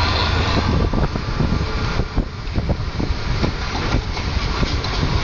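Kenworth T2000 semi-truck running down a wet road, heard from out of the cab window: a steady low engine drone under tyre and wind noise, with frequent short, irregular thumps.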